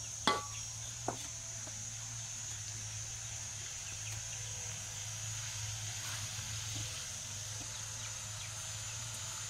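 Metal spatula stirring in a wok, clinking sharply against it twice about a second apart near the start, over a steady high-pitched hiss and a low hum.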